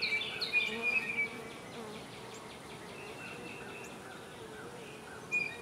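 Honeybees buzzing around an open nuc hive as a bee-covered frame is held up: a steady, faintly wavering hum. A few thin, high chirps sound over the first second or so and again about three seconds in.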